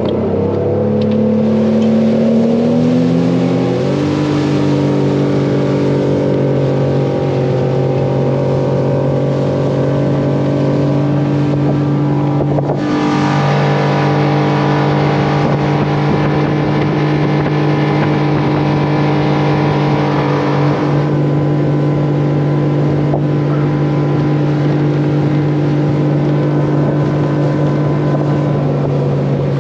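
Suzuki 300 V6 outboard opened up to full throttle, its pitch rising over the first few seconds as the boat gets on plane, then running steady at wide-open throttle at top speed, about 53 mph. A loud, deep engine note.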